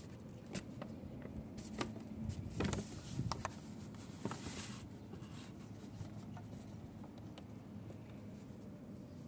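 Rustling and crinkling of a paper gift bag being handled and tipped out onto a wooden table, with several light clicks and taps in the first half. It settles to quiet room noise after about five seconds.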